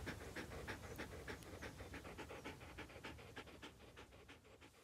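An Akita dog panting with its tongue out: quick, even breaths, about six a second, growing fainter and fading away near the end.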